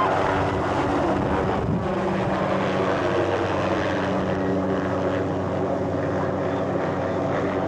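Helicopter running close by: a steady drone with a loud rushing of rotor downwash.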